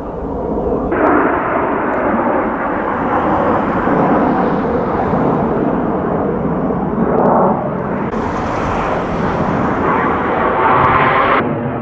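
Jet aircraft of the Italian display team, the Frecce Tricolori in Aermacchi MB-339 jets, flying past with a loud rushing jet roar. The roar swells a few times and cuts off suddenly near the end.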